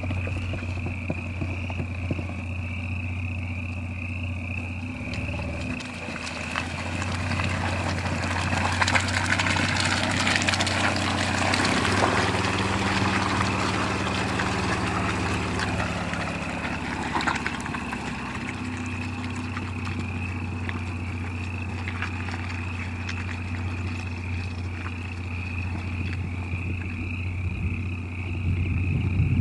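Supercharged Toyota Land Cruiser 80-series straight-six running at low speed as the truck crawls through mud and slush. Engine and tyre noise grow louder through the middle as it passes close by, then ease off as it moves away.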